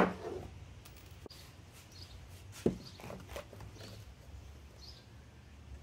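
Light knocks and taps of small plywood birdhouse pieces being handled and set down on a wooden workbench, with a sharp knock right at the start and another about two and a half seconds in.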